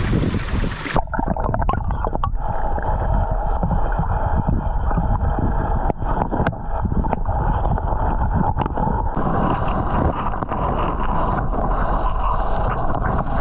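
Shallow flowing floodwater, heard first in the open as a bright rush, then about a second in the camera goes under and the current becomes a muffled underwater rush and low rumble, with scattered small clicks and knocks.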